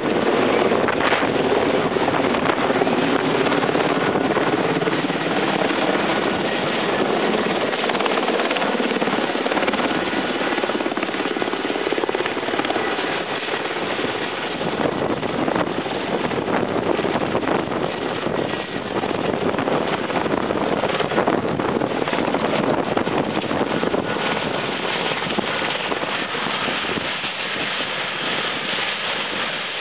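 Eurocopter AS332 Super Puma's main rotor and twin turbines running loud and steady as the helicopter descends, hovers low and sets down, easing off a little near the end.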